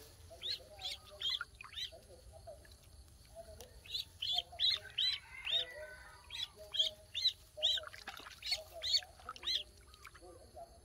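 Duckling peeping: runs of short, high cheeps, two or three a second, in three bursts with brief pauses between.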